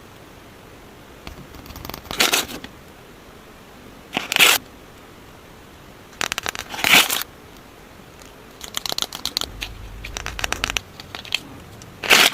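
Packaging being torn open and crinkled in short, sharp rips: four loud tears a couple of seconds apart, with a run of small crackles and clicks between the last two.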